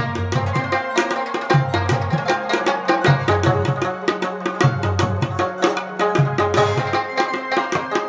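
Instrumental music: a rabab playing a melody over a steady, rhythmic drum beat.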